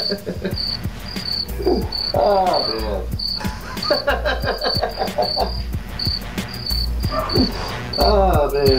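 An insect chirping steadily in short high chirps, about three a second, with a man's voice and laughter in bursts.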